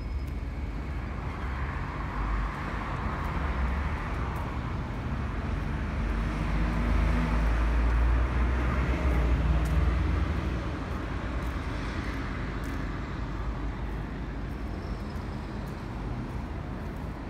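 Road traffic noise with a steady low rumble; a passing vehicle swells louder through the middle and fades again.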